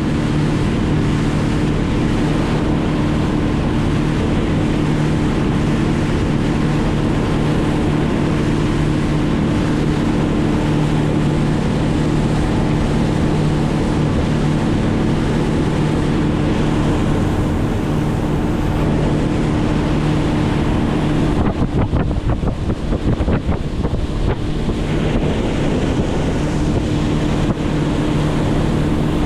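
A motor running at a steady pitch under rushing wind on the microphone. For a few seconds after about twenty-one seconds in, the motor tone fades under rough wind buffeting, then comes back.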